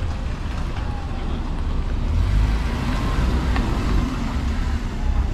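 Cars moving slowly on a road close by: a steady vehicle noise of engine and road sound with a heavy low rumble, and no speech.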